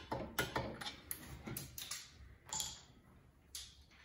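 Torque wrench ratcheting in irregular clicks as it tightens the cylinder head bolts of a two-stroke snowmobile engine, with a longer scraping click about two and a half seconds in.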